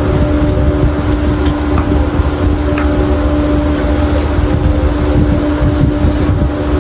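Steady low machine hum and rumble, with a constant drone tone and a few faint clicks.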